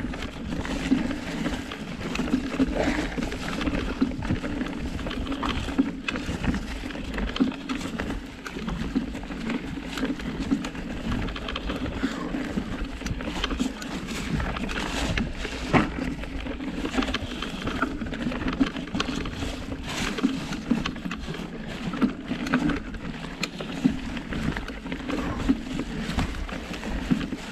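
Surly Krampus 29+ mountain bike rolling over a rocky trail: a steady tyre rumble with frequent rattles and knocks from the bike over the rocks.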